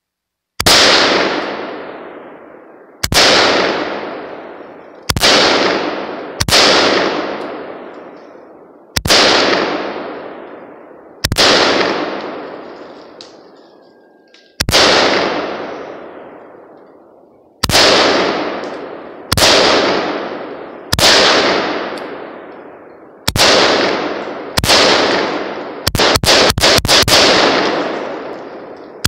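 Riley Defense RAK47C semi-automatic AK-47 rifle firing steel-cased Tula 7.62×39mm rounds. About a dozen single shots come a second or two apart, each ringing out in a long echo, then a fast string of shots near the end.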